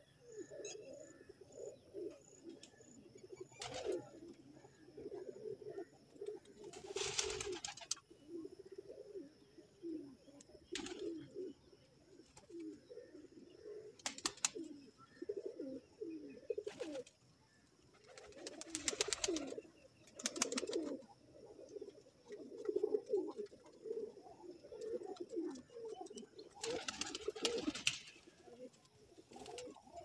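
A flock of Teddy pigeons cooing continuously, many birds overlapping, with several short bursts of wing flapping.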